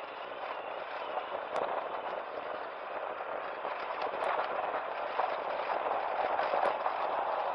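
Yamaha FJR1300 motorcycle ridden over loose dirt and gravel: a steady rush of wind and tyre noise, with three sharp ticks a couple of seconds apart.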